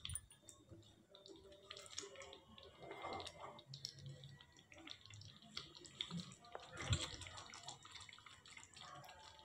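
Thick chicken curry gravy in a kadai simmering faintly on a very low flame. There is a light knock about seven seconds in.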